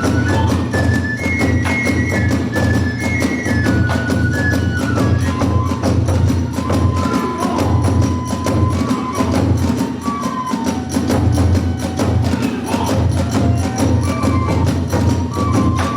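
Hiroshima kagura festival music: a taiko drum beating steadily under a bamboo flute melody, with sharp clashes from small hand cymbals.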